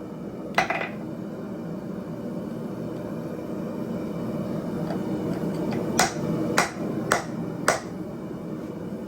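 Blacksmith's hammer striking steel on an anvil, with a ringing note. One blow comes about half a second in, then four blows in quick succession about half a second apart near the end, over a steady rushing noise.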